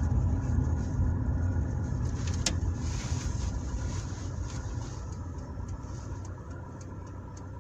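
Lada Niva Travel heard from inside the cabin while driving: a steady low engine and road rumble that slowly fades as the car slows, with a single sharp click about two and a half seconds in.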